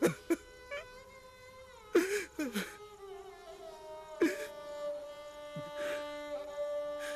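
Slow background music of long held violin notes, broken a few times by a man's short sobbing gasps.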